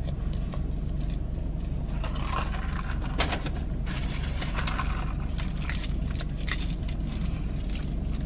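Scattered rustles, clicks and scrapes from handling a plastic iced-coffee cup and its straw, the sharpest click about three seconds in, over a steady low hum inside a car.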